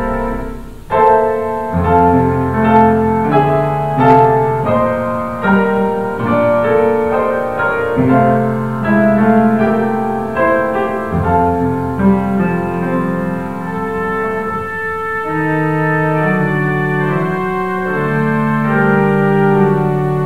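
Piano and organ playing a Christmas carol together, struck piano notes over held organ chords. The music dips briefly about a second in, then carries on.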